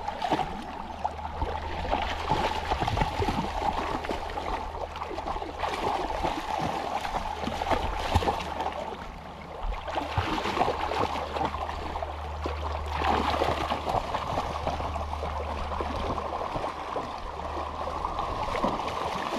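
Shallow river water running and gurgling over rocks, with irregular splashing from a dog and a person wading through it.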